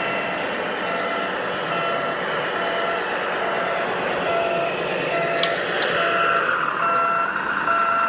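Reversing beeper of a radio-controlled tipper truck's sound unit, sounding alternating high and low beeps in an even rhythm as the truck backs up. The beeps grow louder in the second half over a steady hum, with one sharp click about five and a half seconds in.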